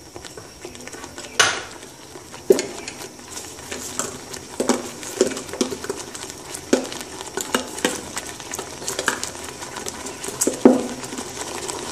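Thick tamarind sauce simmering in a non-stick saucepan: a steady sizzling hiss with scattered sharp pops and clicks, the sharpest about a second and a half in and near the end.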